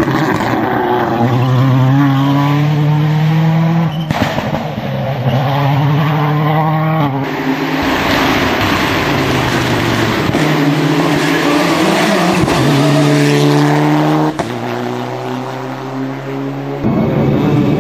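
Rally car engines at full throttle, revving up through the gears, the pitch climbing and dropping back at each shift. The sound breaks off suddenly several times as the footage cuts from one car to the next.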